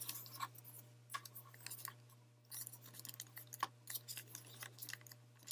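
Small plastic parts of a Transformers figure and its accessories clicking and rattling in the hands as pieces are turned and tried against the figure: irregular clusters of short, sharp clicks. A steady low hum runs underneath.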